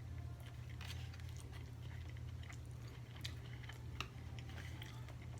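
A person chewing food close to the microphone, with a few short mouth clicks, over a steady low hum.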